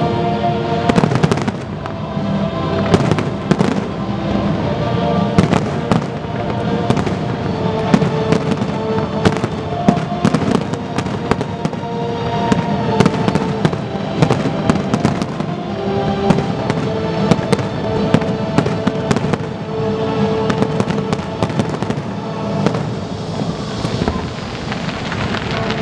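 Aerial fireworks shells bursting in a dense barrage, with frequent sharp bangs throughout and music playing underneath.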